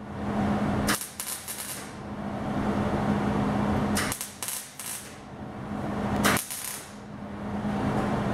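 MIG welder arc crackling as thin sheet steel is stitch-welded, in several stretches broken by short pauses. A steady low hum runs underneath.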